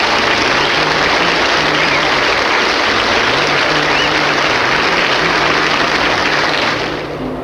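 Studio audience applauding, a dense steady clapping that cuts off near the end.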